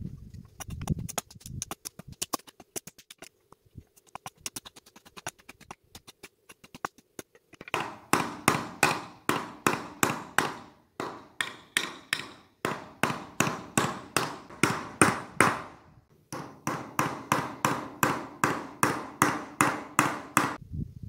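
Hammer driving nails into a wooden fence, sped up: light, scattered taps at first, then long runs of rapid ringing blows about five a second with short pauses between runs.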